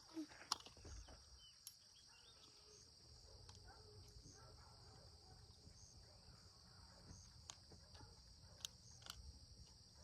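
Faint, steady, high-pitched chorus of insects, with a few faint clicks scattered through it.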